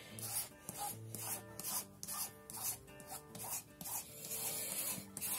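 Repeated rubbing strokes of an applicator spreading clear gesso across textured scrapbook paper, irregular at about two strokes a second, over soft background music.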